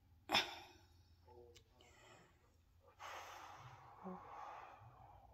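A woman's long sigh, a breath out about three seconds in that lasts about two seconds, after a short sharp sound near the start.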